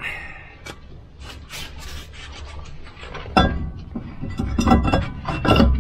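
Volvo 940 rear brake disc being slid back onto the hub over the handbrake shoes: metal rubbing and clinking, with a knock about three and a half seconds in and two louder ones near the end.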